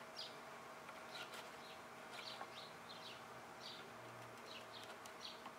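Faint, repeated short bird chirps, several a second, over a quiet steady background hum.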